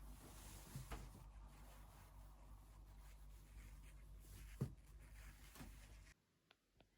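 Near silence: faint room hiss with a few soft knocks, the loudest a little past the middle. The background cuts out suddenly near the end.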